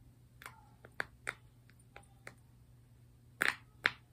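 Scattered soft pops and clicks, about eight of them, as fingers press and handle a small silicone Pop-It keychain, with two louder ones near the end.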